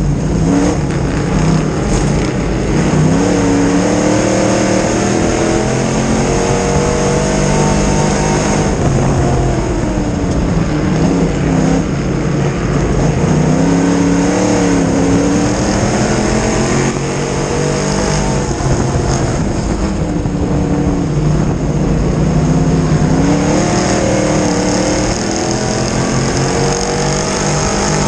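Crate-engine dirt modified's V8 heard from the cockpit at racing speed, its revs climbing and then dropping off again several times, over a steady rush of wind and track noise.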